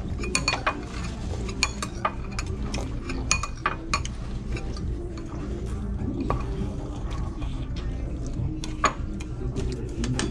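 Eating at a table: chopsticks and spoons clicking and tapping against bowls and dishes many times, with pho noodles being slurped, over a steady low hum of room noise.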